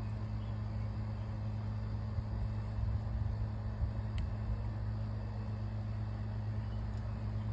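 A steady low motor hum that holds the same pitch throughout, with a faint click about four seconds in.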